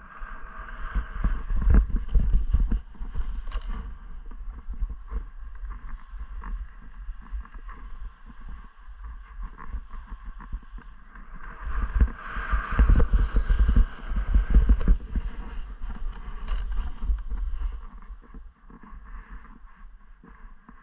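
Skis scraping and chattering over hard, wind-crusted snow, with wind buffeting the camera microphone. The scraping and rumble swell about two seconds in and again for a few seconds past the middle.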